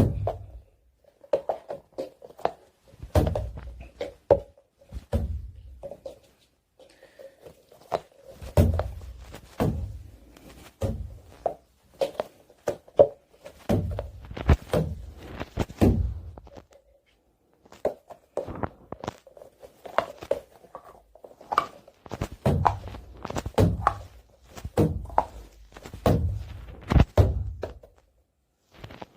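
Sticky fidget balls being handled, slapped down and squished: repeated soft thuds with sharp sticky clicks, coming in bursts with short pauses.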